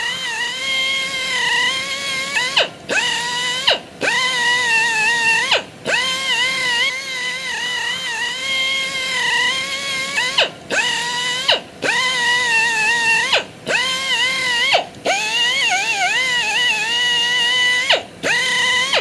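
Mini angle grinder running with a shrill, high-pitched whine that wavers slightly in pitch. About eight times the sound drops out briefly, and each time it comes back rising quickly in pitch.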